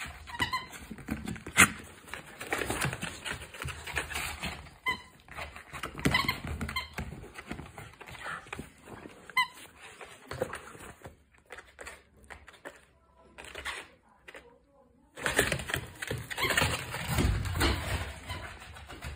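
Miniature dachshund playing with an eggplant-shaped squeaky toy: the toy's squeaker gives short, high squeaks several times, amid scuffling and clicks of the dog and toy on the floor, with a quieter stretch about two-thirds through.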